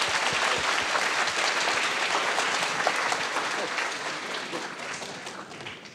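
Audience applauding, a dense patter of many hands clapping that dies away over the second half.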